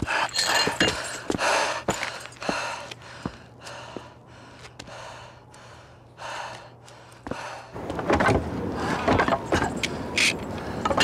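An axe striking brickwork: sharp blows with bricks crunching and clattering. Then quick, heavy breathing, about two breaths a second, followed by louder scuffs and knocks near the end.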